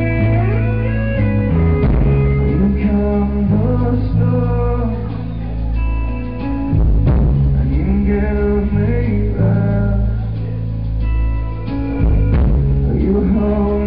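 Live rock band playing: a male vocalist singing over electric guitars and a heavy bass line, in a rough, muffled audience recording.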